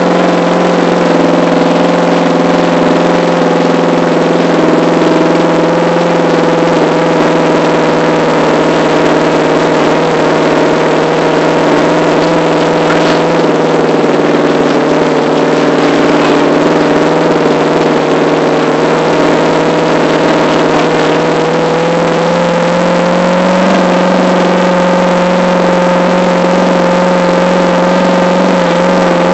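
Monster truck's engine running loudly and steadily under the passengers on board, its pitch rising slightly about two-thirds of the way through.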